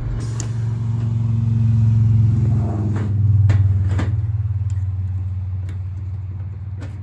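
A passing vehicle's low rumble swells to a peak around the middle and then fades, with a few light metallic clicks from a brake pad being fitted into its caliper bracket.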